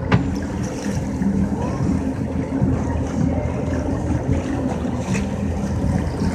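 Boat engines idling steadily, a low hum, with wind and water noise around it. A sharp click sounds right at the start.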